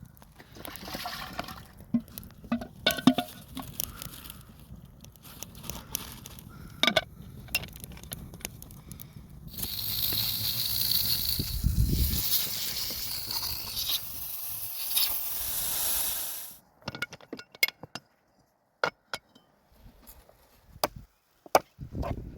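Outdoor cooking and handling sounds: scattered knocks and clicks, then about seven seconds of steady hissing that stops abruptly, followed by a few sharp clicks.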